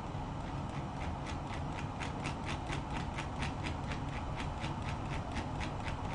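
A steady run of light clicks, about five a second, starting about half a second in, over a low hum.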